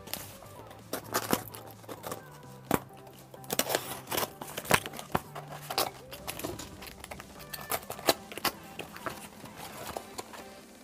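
Cardboard shipping box being opened: packing tape slit and torn with a pointed tool, in a run of sharp irregular scrapes and crackles, then the flaps pulled open and crumpled paper packing rustling.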